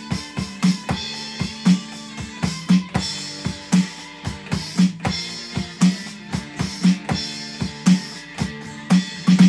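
A drum kit plays a steady rock beat, with a deep drum hit about once a second and snare and cymbal strokes in between.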